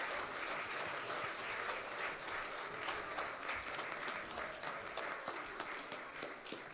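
Audience applauding, many hands clapping together, slowly dying down near the end.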